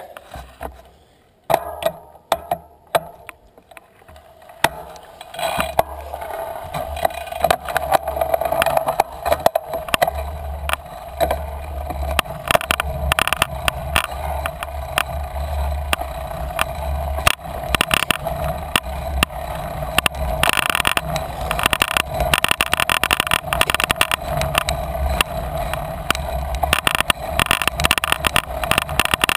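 Bicycle riding over a bumpy grass and dirt track: tyres rolling and the bike rattling over bumps, with wind noise. A few scattered knocks at first, then a steady rolling rumble with dense rattling from about five seconds in as the bike gets going, growing louder and hissier later on.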